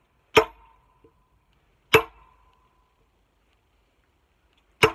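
Steel splitting wedge being hammered into the end of an ash log: three sharp metal-on-metal blows, the first just under half a second in, the next about a second and a half later and the last near the end, each leaving a short ring from the wedge.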